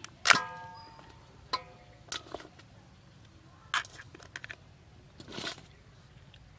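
Raw blue swimmer crab shell cracking and crunching as bare hands pry the top shell off the body: a sharp crack a moment in, the loudest, then smaller clicks and cracks, and a short crunch about five seconds in.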